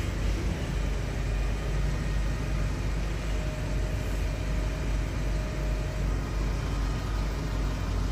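Steady low rumble of city background noise. A faint steady tone runs through the middle.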